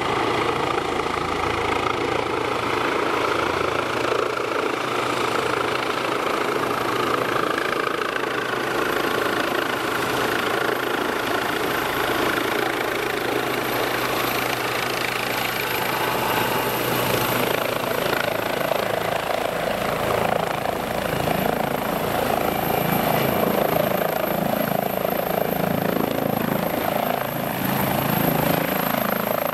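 Eurocopter EC135 twin-turbine helicopter coming in to land: steady rotor and turbine noise as it descends and approaches, with a thin high turbine whine from about midway. It touches down in the second half and keeps running on the ground with the rotor turning.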